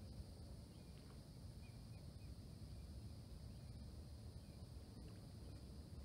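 Quiet outdoor ambience: a low, fluttering rumble with a few faint bird chirps in the first couple of seconds.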